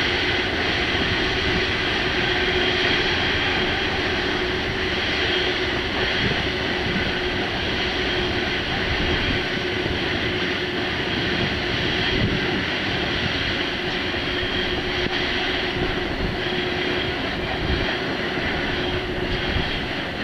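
Long freight train hauled by electric locomotives, with one at the head and another pushing at the rear, rolling slowly over a curved viaduct on an electrified line. It makes a steady rumble of wagons with a constant hum from the locomotives.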